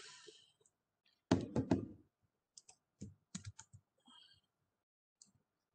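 Typing and clicking on a computer keyboard and mouse: a quick run of loud keystrokes a little over a second in, then scattered single clicks.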